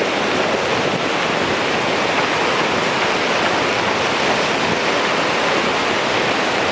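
Steady rush of storm wind and breaking surf on a beach, with wind buffeting the microphone.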